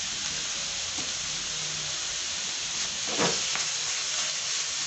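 Chicken pieces sizzling steadily in hot oil in a non-stick frying pan as they brown, with one brief louder sound about three seconds in.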